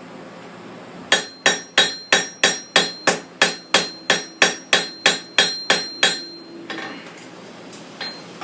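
Blacksmith's hand hammer striking steel on an anvil: a steady run of about sixteen blows, roughly three a second, with a high ringing note, followed by a couple of lighter taps. The blows are hammering the ends of a small forged troll cross together.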